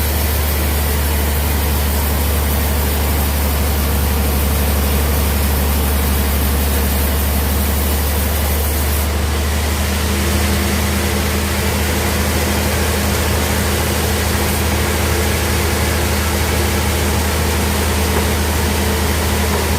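Sawmill bandsaw running steadily with a strong low hum, its tone shifting slightly about halfway through.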